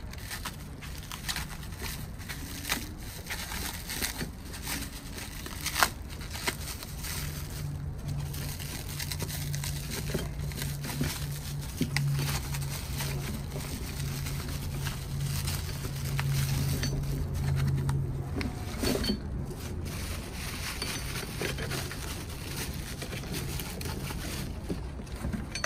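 Plastic wrapping crinkling and tearing as metal hitch stabilizer brackets are unwrapped by hand, with scattered light clicks and knocks of the metal parts. A low steady hum runs underneath and swells for a few seconds in the middle.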